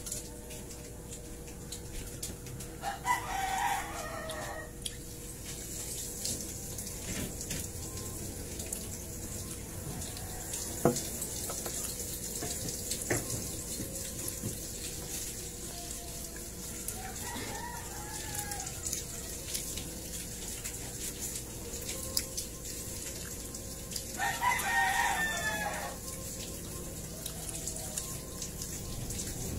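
A rooster crowing three times, each crow lasting about two seconds, over a steady hiss and a faint hum, with a few small clicks in between.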